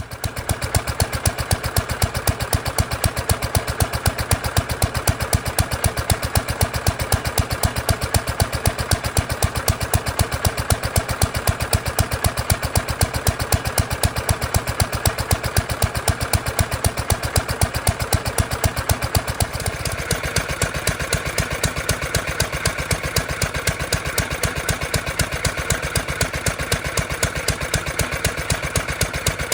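1934 International Harvester LA single-cylinder stationary engine running steadily at about five even firing beats a second, now running again with a newly changed fuel line. The tone of the running shifts slightly about two-thirds of the way in.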